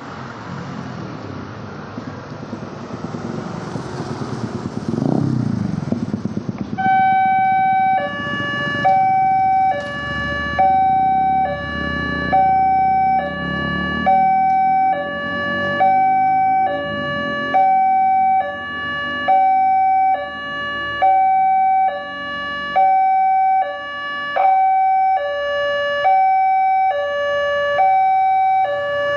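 Street traffic with a vehicle passing by, then about seven seconds in a railway level-crossing warning siren starts: an electronic two-tone alarm alternating high and low, each tone about a second long, repeating steadily. It is the warning that a train is approaching the crossing.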